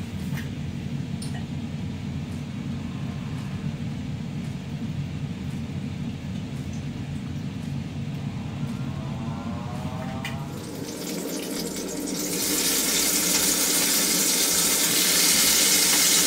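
A low steady hum, with a short glugging of olive oil pouring from a glass bottle into a pot about ten seconds in. Then turkey pieces sizzle in the hot oil as they fry, a hiss that swells from about eleven seconds in and stays loud to the end.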